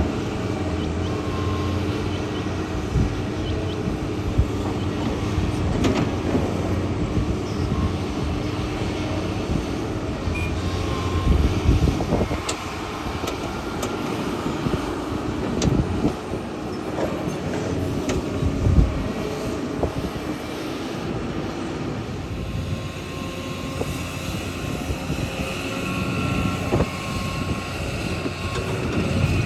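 Kobelco excavator's diesel engine running steadily under load, with short knocks and clanks scattered throughout.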